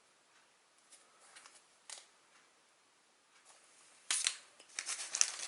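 Match Attax trading cards and their packaging being handled: a few faint ticks, then from about four seconds in a quick run of sharp clicks and rustles.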